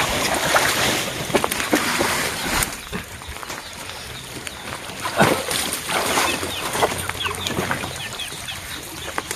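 Water splashing and sloshing as people wade and handle a basin of water and pond weeds, loudest in the first three seconds. After that come short, high bird chirps.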